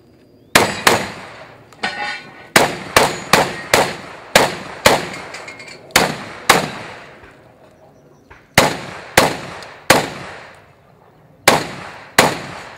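Shotgun fired rapidly during a timed competition stage: well over a dozen sharp shots in quick runs of several shots, with short pauses of one to two seconds between runs.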